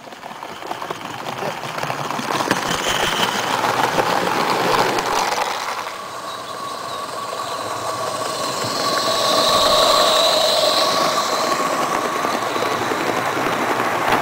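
A small-scale live-steam garden railway train running past on the track, wheels clattering and squealing. The sound builds, eases briefly in the middle, then swells again, with a steady squeal strongest about ten seconds in.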